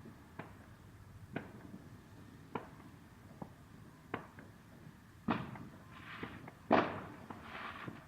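Distant fireworks going off: scattered sharp pops roughly once a second, then two louder bangs, each followed by a short hissing crackle.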